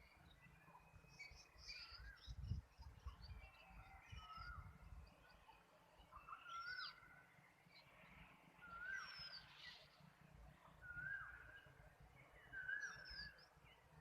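Songbirds calling: one bird repeats a short whistled phrase about every two seconds while others add higher chirps and whistles. There is a brief low rumble about two and a half seconds in.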